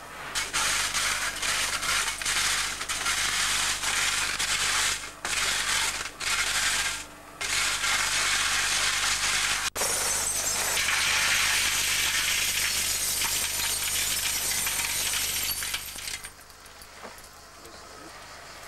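Broken glass shards clattering and clinking continuously as they are scraped and tipped out. It breaks off sharply about ten seconds in, starts again at once, and dies down near the end.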